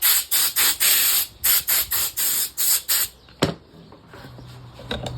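Compressed-air blow gun fired in about a dozen quick hissing bursts over three seconds, clearing chips from freshly routed grooves. A sharp click follows, then a low steady hum starts.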